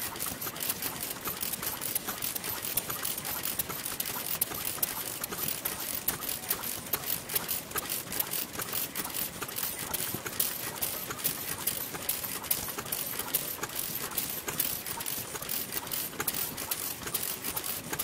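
Vintage Japanese stationary kerosene engines running, a NODA single-cylinder engine in front, making a fast, uneven clatter of clicks and knocks.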